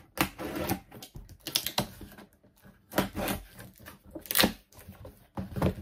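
Scissors cutting through the tape and paper wrapping of a cardboard shoebox parcel, with the wrapping crackling and tearing in irregular short bursts.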